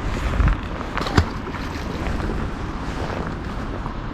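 Wind buffeting the microphone as a steady, rumbling hiss, with one short sharp knock a little over a second in.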